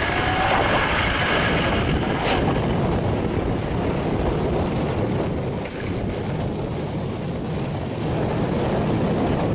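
A fast stream rushing across the road at a water crossing: a steady, loud rush of water, with one short sharp click about two seconds in.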